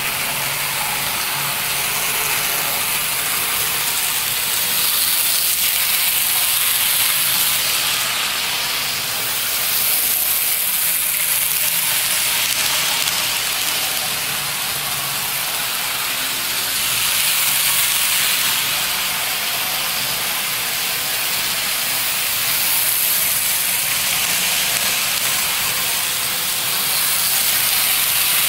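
Athearn N scale model trains running around a small oval track: a steady, high whirring hiss of the small motors and wheels on the rails, swelling several times as the trains pass close by.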